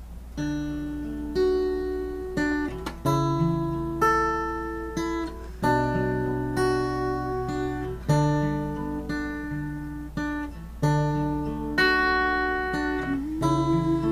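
Acoustic guitar strumming chords in a slow, even pattern, a chord about every one to one and a half seconds, each left to ring and fade. A steady low hum runs underneath.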